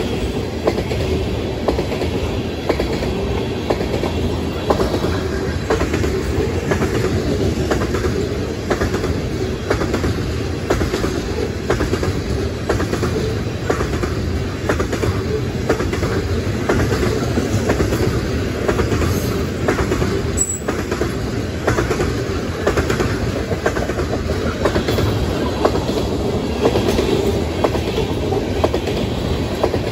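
Freight train of tank cars rolling past at a grade crossing: a steady rumble of steel wheels on rail, with an even clickety-clack as the wheel sets pass over the rail joints.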